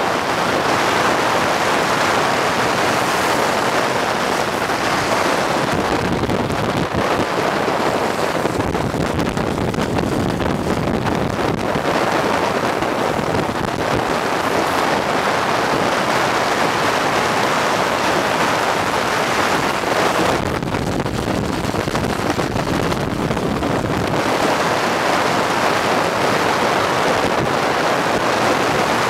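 Steady rush of wind and road noise at speed, with wind buffeting the microphone. The noise shifts in tone a few times.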